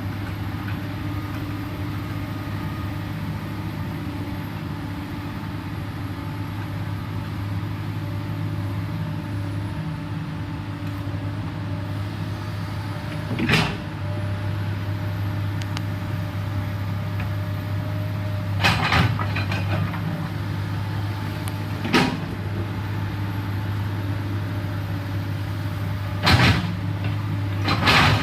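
Komatsu PC210LC excavator's diesel engine running steadily under work, with a faint high whine over it. Several sharp knocks and clanks come from the machine working through the middle and end.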